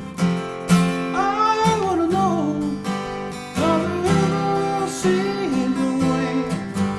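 Acoustic guitar strummed in a song, with a gliding melody line over the chords twice.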